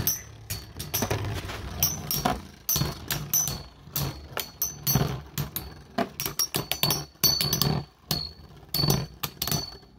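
Three Metal Fight Beyblade spinning tops whirling in a plastic stadium, their metal wheels knocking together in many irregular sharp clacks, with a faint high whine from their spin.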